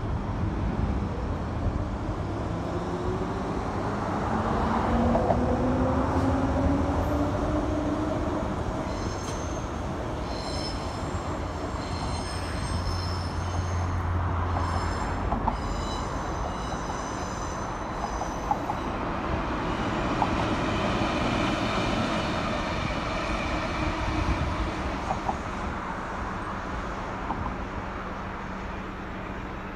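Transperth electric suburban trains running past on the rails. In the first several seconds a rising whine comes from a train gathering speed, then a high thin squeal of wheels on the rails comes and goes for several seconds.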